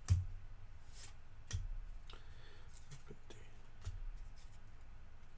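Trading cards being handled and sorted on a desk: a few light taps and knocks, the loudest right at the start with a soft thump, and faint rustling of cards between them.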